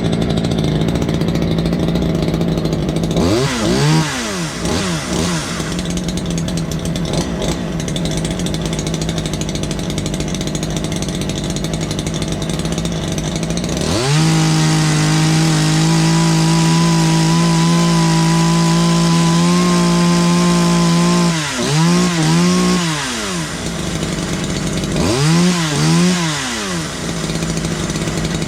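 Ported Poulan Predator two-stroke chainsaw with a custom welded exhaust, running during carburettor tuning. It idles, is revved up and down a few seconds in, then held at wide-open throttle for about seven seconds from halfway through, and is revved again twice near the end.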